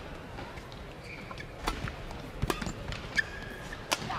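Badminton rally: a run of sharp racket strikes on a shuttlecock, roughly one every second, with a brief squeak of court shoes on the floor.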